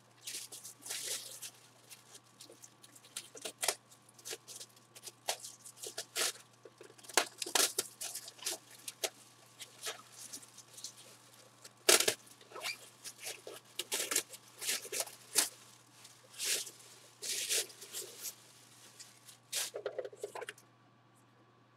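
Packaging being handled and torn open by hand: irregular rustling, scraping and tapping, with one sharp knock about twelve seconds in.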